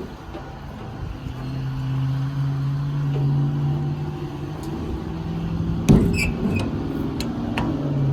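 Ford F550 service truck with its 6.7 Power Stroke diesel running, a steady low hum coming up about a second in. About six seconds in there is a single sharp metallic clank, the loudest thing heard, followed by a few lighter clicks.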